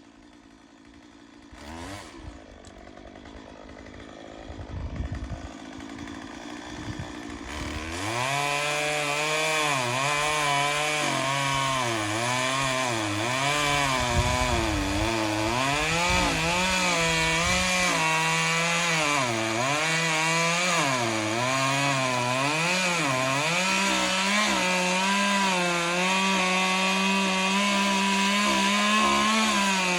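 Chainsaw running in the tree, coming in loud about eight seconds in and cutting into oak. Its engine pitch repeatedly dips and recovers as the chain bogs in the wood, then holds steadier and higher near the end.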